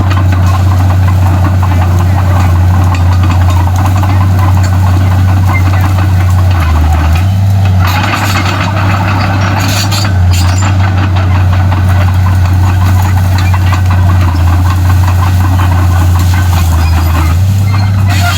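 Komatsu D31P bulldozer's diesel engine running loud and steady under work, its low drone dipping and rising in pitch several times as the load changes, with a harsher rattling noise for a couple of seconds around the middle and again near the end.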